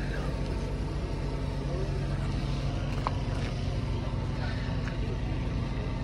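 Outdoor market background: faint voices of people around, over a steady low hum, with one sharp click about three seconds in.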